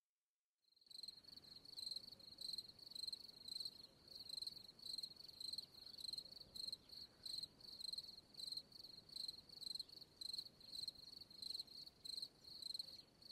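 Faint cricket chirping, a high chirp repeated evenly about twice a second, starting about a second in.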